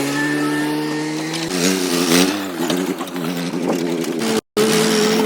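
Vehicle engine running with a steady pitch. For a couple of seconds in the middle its pitch wavers up and down. About four and a half seconds in the sound cuts out for a moment and comes back steady.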